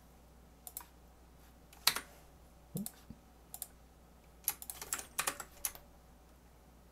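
Computer keyboard keystrokes, some single and scattered, then a quick run of several presses about four and a half to six seconds in, as modelling shortcuts are entered.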